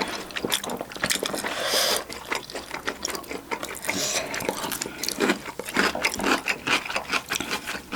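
Eating sounds close to the microphone: a person chewing a mouthful of chicken and rice, with many quick, irregular clicks and smacks.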